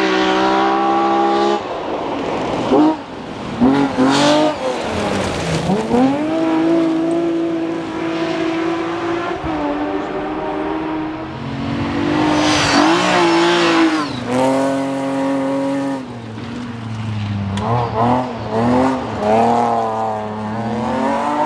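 BMW-powered rally car engines revving hard on a stage, the pitch climbing through each gear and dropping sharply at the shifts and lifts, loudest about four seconds in and again around twelve to fourteen seconds in.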